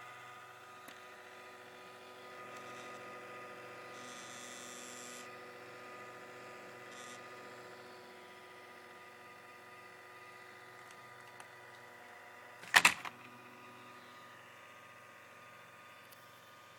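Sony laptop giving off a steady hum made of several level tones at once, the strange noise it is making. A brief hiss rises about four seconds in, and a cluster of sharp, loud clicks comes about three-quarters of the way through.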